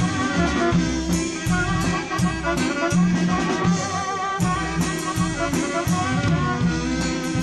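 Waila (chicken scratch) band playing live: a wavering horn melody over bass and drum kit with a steady, lively beat.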